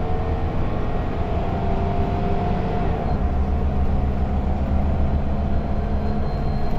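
Mercedes-Benz OC500LE bus's rear-mounted engine running under way, with the ZF automatic gearbox, heard from the rear of the cabin: a steady deep hum with a whine whose pitch shifts about three seconds in.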